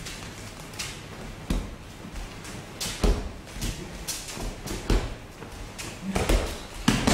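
Bare feet stamping and slapping on judo mats as throws are drilled, a run of sharp thuds at uneven intervals. The loudest thud, near the end, is a thrown partner landing on the tatami.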